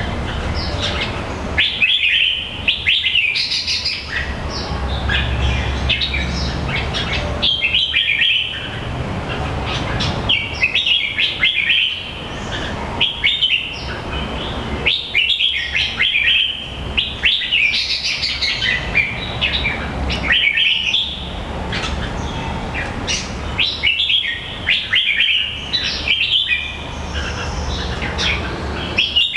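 A bird singing in repeated bursts of quick, high chirping notes every second or two, over a steady low background rumble.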